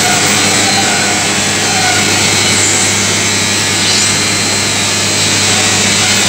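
Sawdust drum dryer plant running: electric-motor-driven fans and machinery making a loud, steady noise with a constant low hum underneath.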